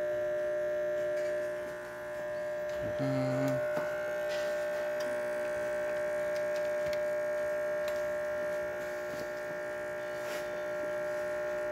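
Rancilio Epoca espresso machine's pump running with a steady hum while it pulls a shot of espresso, with a brief lower buzz about three seconds in.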